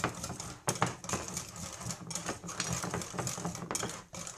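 Metal wire whisk beating thick pancake batter in a glass bowl: a rapid, steady run of clicks and taps as the wires strike the glass.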